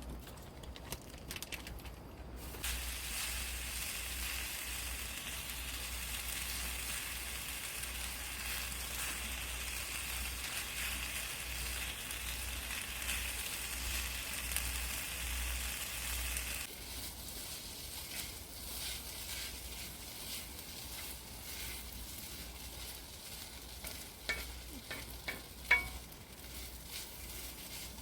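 Food sizzling in a hot pan. The sizzle starts abruptly a couple of seconds in and stops abruptly past the middle. A few sharp clicks follow near the end.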